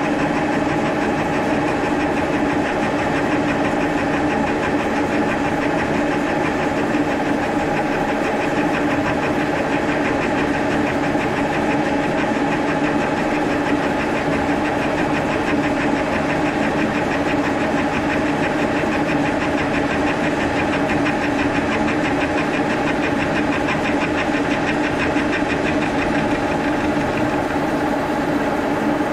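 End mill taking a steady cut along the edge of a metal part clamped in a vise, the milling machine running with an even hum that holds two steady tones.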